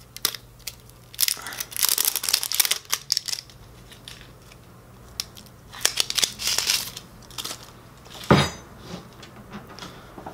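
Plastic tamper-seal band being torn off around the lid of a Ben & Jerry's ice cream pint, in crinkling, tearing bursts with small clicks, then one sharp knock about eight seconds in.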